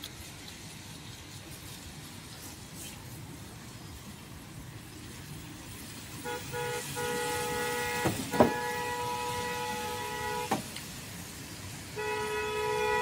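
A vehicle horn sounds a long steady blast of about four seconds, starting about six seconds in, then a second shorter blast near the end. A few sharp knocks come during the first blast. Before the horn there is only low street background noise.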